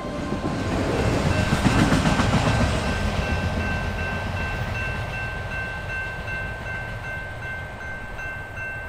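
Railroad grade-crossing warning bell ringing in rapid, evenly repeated dings while a train's rumble and wheel clatter peaks early on and then fades away.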